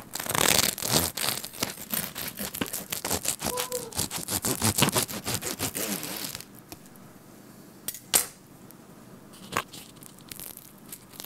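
A knife cutting through the crisp crust of a freshly baked focaccia on a wooden cutting board: a dense crackling crunch for about six seconds, then a couple of sharp knocks.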